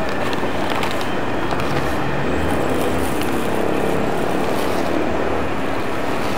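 Paper food wrapping and a thin plastic bag of rice being unwrapped by hand, with light rustling and crinkling, over a steady background rumble.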